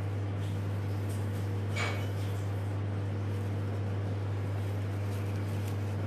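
A steady low hum throughout, with faint rustling of cloth and ribbon being handled and one short light click about two seconds in.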